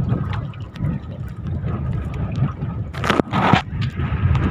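Strong wind buffeting the microphone, a steady low rumble with scattered light ticks and a louder rushing burst about three seconds in.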